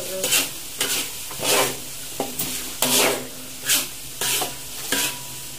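Spatula scraping and stirring around a wok as blended spice paste fries in oil, sizzling, with a scrape a little more often than once a second. The sizzle shows the paste is still cooking down toward the point where the oil separates.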